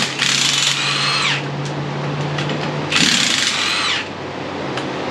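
Impact wrench with an impact socket, run in two short bursts to spin the nuts off an ATV wheel spacer. Each burst winds down in pitch as the trigger is released.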